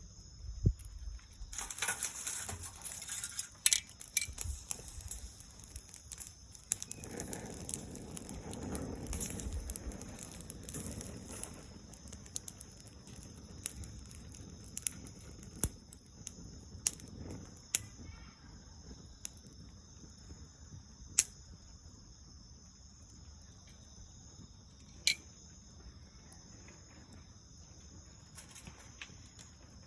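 Small bonfire of dried soyogo leaves and branches crackling, with sharp pops that come thick in the first few seconds and then thin out to single pops every few seconds. Insects drone steadily in the background.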